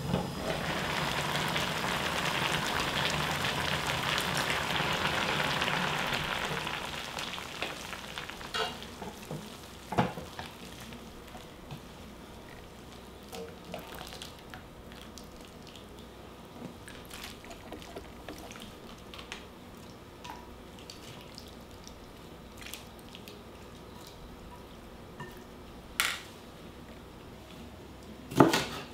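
Pot of water at a rolling boil with sweet potato stems blanching in it, bubbling loudly for about six seconds and then dying down. A few scattered knocks follow, and near the end a kitchen knife chops twice through the stems on a wooden cutting board.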